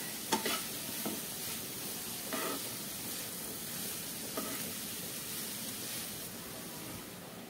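Diced carrot and drumstick (moringa) leaves sizzling in a little oil in a nonstick frying pan while being stirred with a spatula. A few short knocks of the spatula against the pan come about every two seconds.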